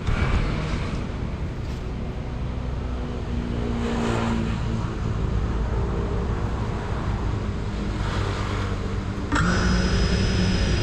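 A steady outdoor rumble, then about nine seconds in the GEPRC CineLog 35 cinewhoop's brushless motors start spinning at idle with a sudden steady whine: the drone being armed for takeoff.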